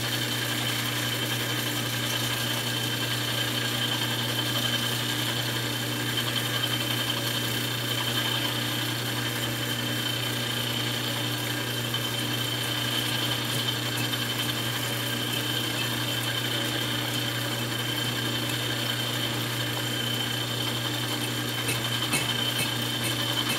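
Metal lathe running steadily with a constant hum and a high whine as the tool is fed into a workpiece that runs nowhere near square, making an interrupted cut. A few light ticks near the end.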